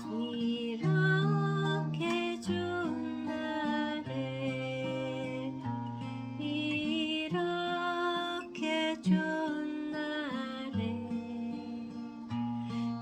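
Singing of a slow ballad melody with vibrato over plucked-string accompaniment and held bass notes.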